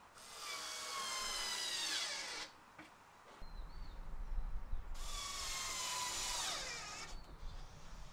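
Cordless power driver running screws into a plastic shed floor frame, in two runs of about two seconds each. The motor whine falls in pitch toward the end of each run.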